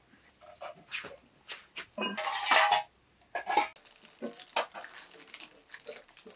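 Dishes and utensils clattering: a series of short knocks and clinks, with a louder, longer rush of scraping noise about two seconds in and a shorter one a second later.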